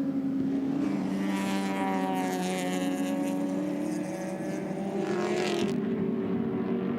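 Race car engine running at speed, its pitch drifting gently up and down, with a louder rush of noise about a second in and again around five seconds in.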